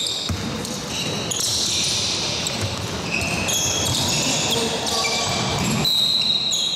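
Basketball game sounds in an echoing sports hall: the ball bouncing, short sneaker squeaks on the wooden court floor, and players' voices.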